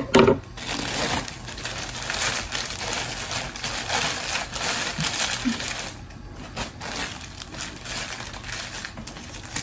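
Plastic packaging crinkling and rustling as wrapped clothes are pulled out of a mailer bag and handled, with a couple of sharp, loud rustles right at the start.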